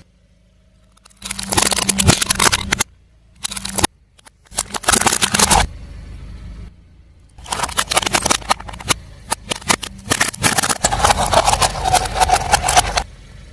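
A car tyre rolling over and crushing crunchy objects, with dense crackling and crunching and a low engine hum. The sound comes in several separate loud stretches, the longest starting about halfway through.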